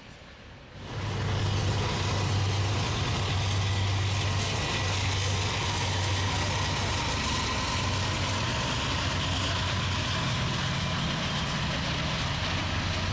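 Large diesel engine running steadily with a deep, even hum, starting abruptly about a second in.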